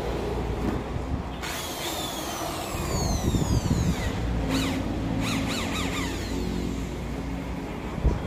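Handheld electric drill run in short bursts, its whir falling in pitch as the motor winds down after each trigger pull: once about a second and a half in, then twice more around the middle. A steady low rumble runs underneath.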